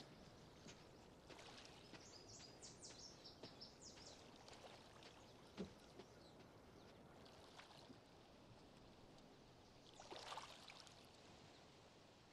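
Near silence: faint outdoor ambience with scattered light ticks and clicks, and a brief soft rustle about ten seconds in.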